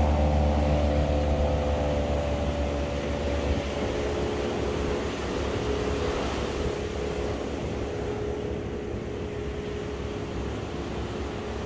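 A passing engine that is loudest at the start, its drone falling slightly in pitch and fading over the first few seconds. It leaves a faint steady hum over the even wash of surf.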